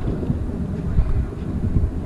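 Wind buffeting the microphone: a loud, irregular low rumble.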